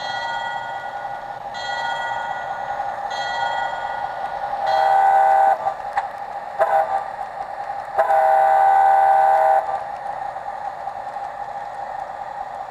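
Diesel locomotive sound effects from the speaker of a Walthers Trainline Railtech DCC base station: a steady engine drone throughout, three fainter ringing tones about a second and a half apart at the start, then loud horn blasts: long, short, long.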